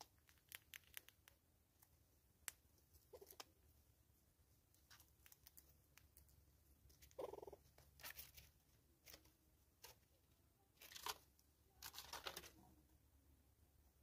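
Faint, scattered clicks and short scratchy rustles of a hornbill's bill and a squirrel picking seed from a plastic feeder, with one short low buzzy sound about seven seconds in.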